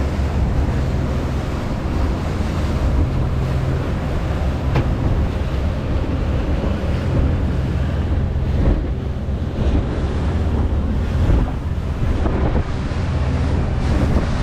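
Motorboat underway: the outboard motor gives a steady low drone under wind buffeting the microphone and rushing water from the wake.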